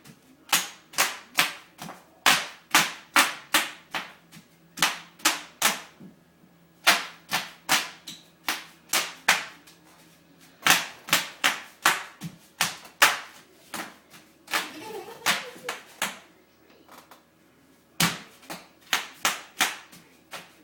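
Bubble wrap popping under a toddler's jumping feet: sharp pops in quick runs of several, about two or three a second, with short pauses between runs.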